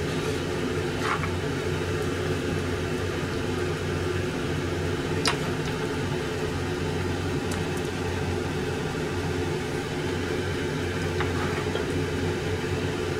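A steady machine hum, like a kitchen fan or motor, with a few faint light clicks of a spoon against a frying pan as meat filling is scooped out.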